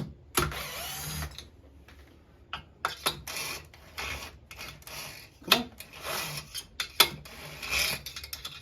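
Hand tools and metal parts being handled on a chainsaw power head: a string of sharp clicks and knocks, with a short whirring run about half a second in and another near the end.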